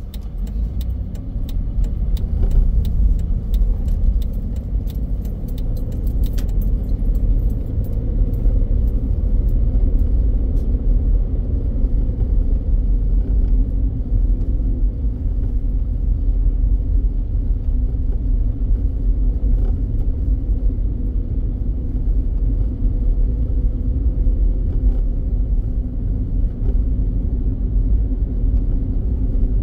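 Road noise inside a moving car: a steady low rumble of engine and tyres that builds over the first couple of seconds as the car pulls away, with light rattling clicks in the first several seconds.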